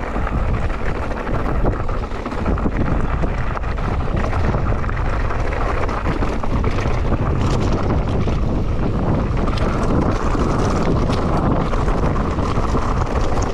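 Wind rushing over the microphone and tyre noise from a mountain bike descending a dirt trail at speed, with scattered clicks and knocks from the bike over bumps.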